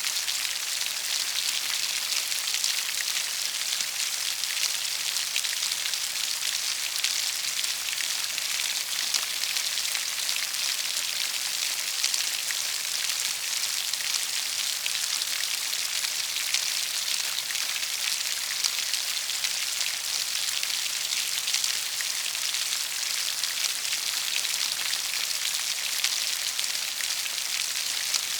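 Steady rain falling: an even, unbroken hiss of many drops, with single drop ticks standing out here and there.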